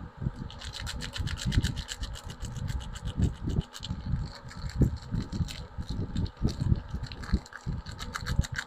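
Packaging crinkling and rustling as soaps are unwrapped by hand: a dense run of quick crisp crackles, with soft knocks from handling the bars and box.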